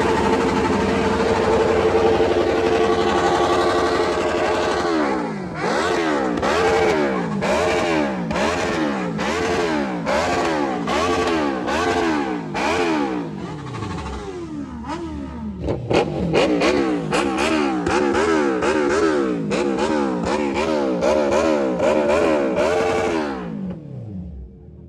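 Kawasaki motorcycle engine running at steady revs, then revved in quick repeated throttle blips, rising and falling about one and a half times a second, with two brief drops to low revs midway. The engine note falls away near the end.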